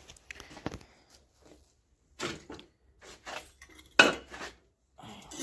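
Household objects being shifted and knocked about by hand: an irregular run of clattering knocks and scrapes, the loudest a sharp knock about four seconds in.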